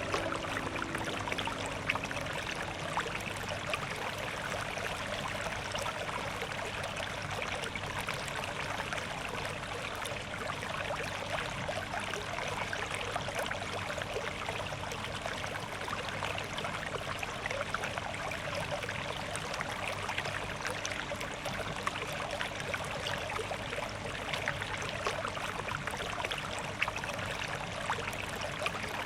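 Steady flowing, trickling water. The last held notes of a piano melody die away in the first few seconds.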